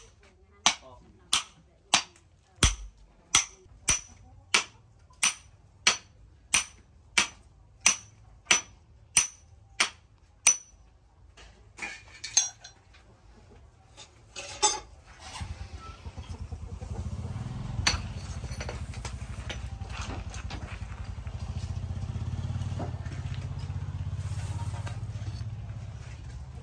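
About sixteen sharp ringing hammer blows on steel, evenly spaced at about one every two-thirds of a second, stopping about ten seconds in. After a few clinks of metal, a forge air blower starts up about fifteen seconds in and runs with a steady low hum, feeding a charcoal forge.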